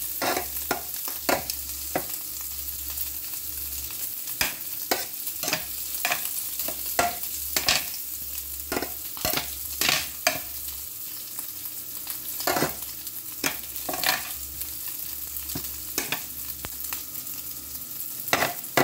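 Food frying in a hot pan: a steady sizzle with irregular crackles and pops.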